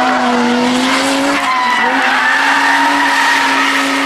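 Audi Quattro rally car's turbocharged five-cylinder engine held at high revs as the car slides sideways through a bend. The note dips briefly about a second and a half in, then climbs back and holds.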